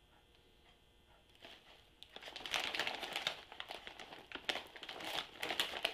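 Lay's potato chip bag crinkling as it is handled and turned over, a dense run of crackles starting about two seconds in.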